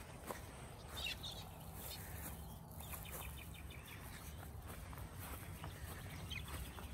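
Outdoor ambience: a low wind rumble on the microphone, with short bird calls and the light rustle of footsteps on grass.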